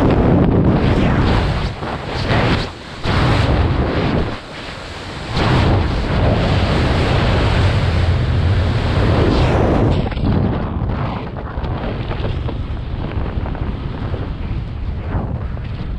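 Heavy wind rushing over the skydiver's camera microphone in freefall, with two brief dips in the first five seconds. About ten seconds in it eases to a lower, duller rush of air under the open parachute.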